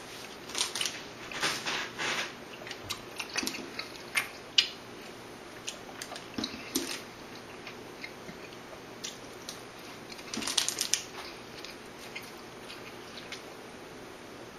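A person chewing and eating McDonald's double cheeseburgers: scattered short clicks and rustles, with a louder flurry near the start, one sharp click a few seconds in, and another flurry about ten seconds in.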